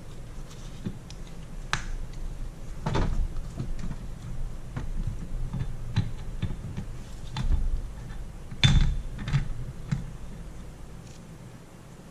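Metal parts of a BMW E30 limited-slip differential clinking and knocking as they are handled and worked loose by hand. There are scattered light clicks, a louder knock about three seconds in, and the loudest clank about nine seconds in.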